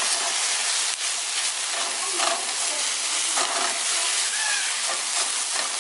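Onions and broccoli florets sizzling in olive oil in a stainless steel sauté pan, a steady frying hiss, while a spatula stirs them with a few short scrapes against the pan.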